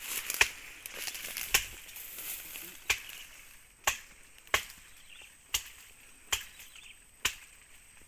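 A series of sharp, separate knocks, roughly one a second at uneven spacing, like chopping or striking wood, over a faint steady high tone.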